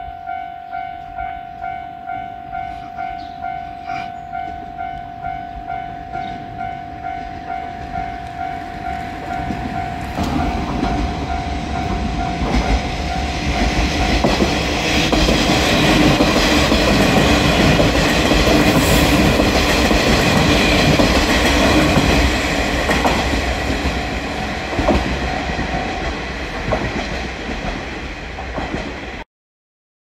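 Japanese level-crossing warning bell ringing in an even, repeating ding, just under two strikes a second. About ten seconds in, a two-car JR West KiHa 47 diesel railcar train approaches and passes over the crossing: engines running and wheels clacking over the rail joints, loudest from about 14 to 22 seconds and drowning out the bell, then fading. The sound cuts off abruptly near the end.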